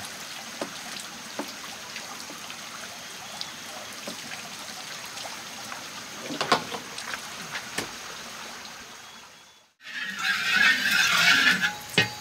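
Water trickling steadily, with scattered small knocks. After a cut about ten seconds in, a louder hiss of rushing or splashing water lasts about a second and a half, followed by a sharp knock.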